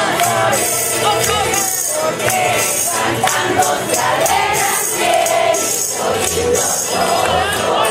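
A group of voices singing together to the jingling of a shaken tambourine, with crowd noise around them.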